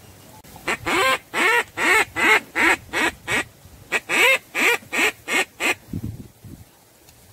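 Mallard quacking: two runs of loud, evenly spaced hen-style quacks, about three a second, eight in the first run and six in the second, which starts about four seconds in.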